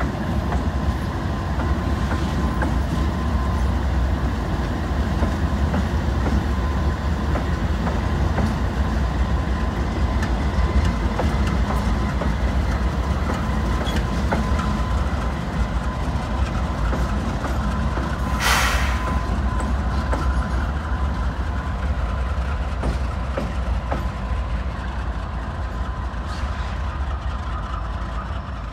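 Diesel-electric freight locomotives rumbling past at low speed, their engines giving a steady, loud low rumble with a faint steady whine over it. A brief hiss comes about two-thirds through, and the rumble eases a little near the end as the units draw away.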